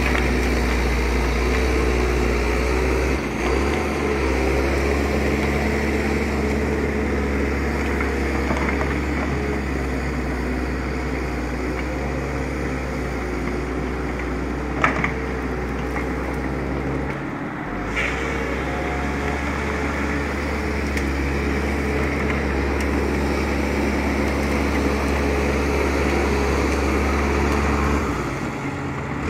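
Hyundai tracked excavator's diesel engine running steadily at working speed, with two sharp knocks a few seconds apart about halfway through.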